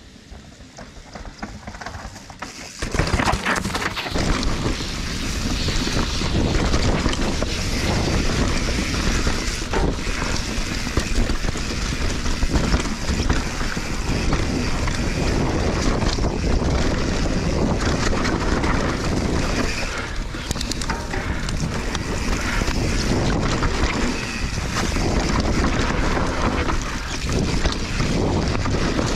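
Mountain bike descending a rocky dirt trail: wind buffeting the bike-mounted microphone, with tyres rolling and the bike clattering over rocks and roots. Quieter for the first few seconds, then loud from about three seconds in.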